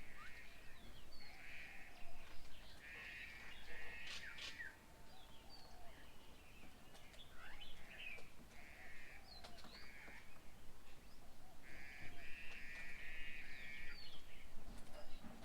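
Birds calling: a run of harsh, rasping calls, each lasting up to about a second and repeated several times, with short sweeping chirps and whistles in between.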